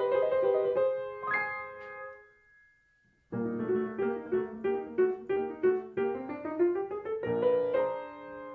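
Solo piano music: a figure of repeated notes fades away about two seconds in, there is a second or so of near silence, then the playing starts again with repeated notes and a rising run.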